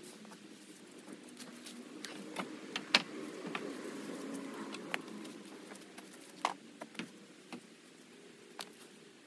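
Footsteps in rubber boots on dry fallen leaves and twigs: scattered crunches and clicks, the sharpest about three seconds in, over a low steady background hum.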